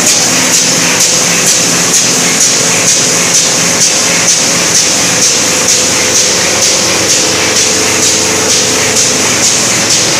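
Envelope-making machine running, its mechanism clattering in an even rhythm of about two strokes a second over a steady hiss.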